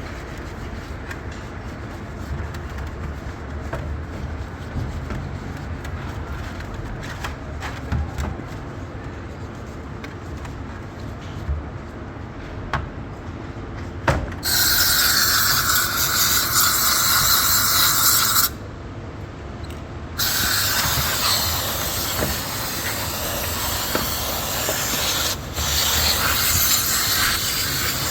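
Light handling clatter and small knocks, then a high-pressure cleaning jet hissing loudly for about four seconds. It cuts off abruptly and starts again about two seconds later, running on steadily, as carbon-fouled intake parts are blasted clean.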